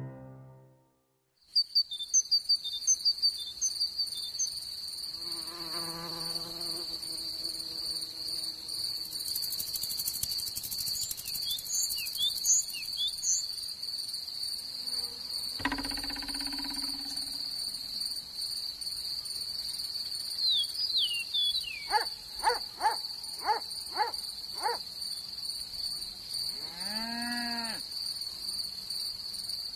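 Cricket chirping in a continuous high trill that starts about a second and a half in and holds steady, with scattered short high chirps, a thump about halfway through and a few brief pitched calls near the end.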